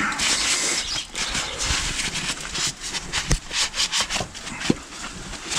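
Rustling and irregular clicks and knocks of hands moving parts and wiring about while working.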